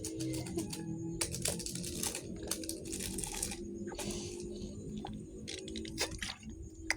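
Close-up eating sounds: a child chewing, with many short irregular crackling clicks over a faint steady hum.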